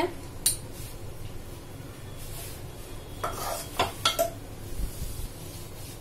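A spoon and dishes being handled: one sharp click about half a second in, then a cluster of clinks and knocks about three to four seconds in, the last with a short ring.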